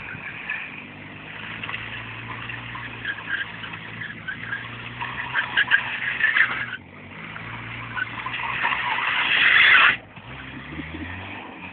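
Peugeot 205 sliding sideways, engine revving under the slide with tyres squealing in bursts. The longest squeal builds steadily to its loudest just before ten seconds in, then stops suddenly.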